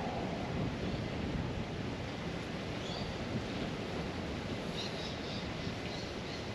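Steady outdoor background rumble and hiss like wind on a microphone, with faint high chirps about three seconds in and again around five seconds in.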